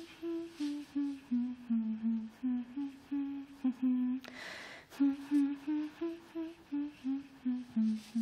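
A woman humming a slow tune in short held notes, with a brief pause about four seconds in.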